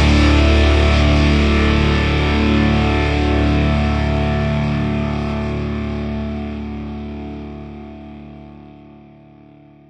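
A rock song's final distorted electric guitar chord held and slowly fading out.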